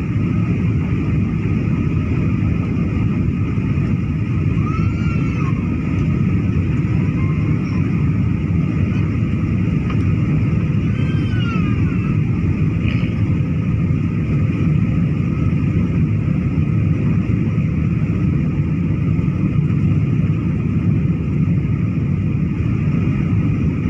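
Steady in-flight cabin roar of a Boeing 737 jet airliner: engine and airflow noise heard from a window seat. A couple of faint, brief high-pitched rising-and-falling calls sound over it.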